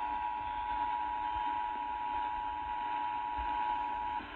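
Emergency Alert System attention signal: the steady two-tone 853 and 960 Hz alert tone, heard off-air over a radio with a hiss of static, cutting off about four seconds in.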